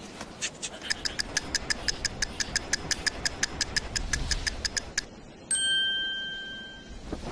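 Rapid electronic ticking, about seven ticks a second for some four seconds, as an on-screen calorie counter rolls its number upward. Then a single bright ding rings out and fades.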